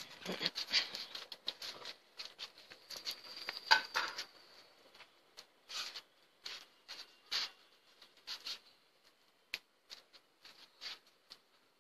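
Rustling of ivy gourd vine leaves and clicks of scissors snipping the fruits during harvest: a dense crackle for the first four seconds, then scattered clicks.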